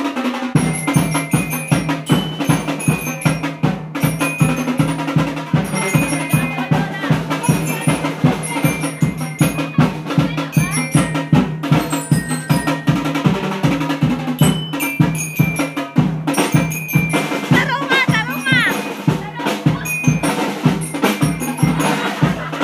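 Upbeat music with a steady, fast drum beat.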